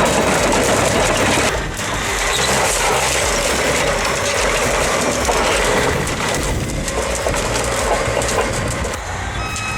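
Bulldozer engine running under load while the machine crushes cars, with a steady mix of engine noise and grinding metal.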